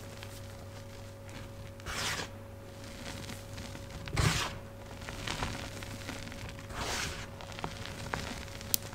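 Hands crushing and pressing powdery, crumbled gym chalk: three soft crunching, hissing bursts, the loudest about four seconds in with a dull thud, and a short click near the end. A steady low hum from an old fridge runs underneath.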